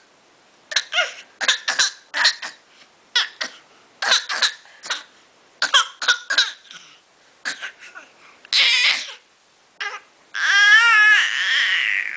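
A small child's pretend coughs: short, forced bursts, mostly in quick twos and threes, used to get attention. Near the end comes one longer, wavering cry.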